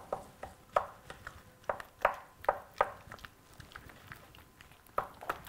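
A spoon stirring thick quark dough in a stainless steel mixing bowl, with irregular knocks and scrapes of the spoon against the metal, a dozen or so, thinning out after about three seconds.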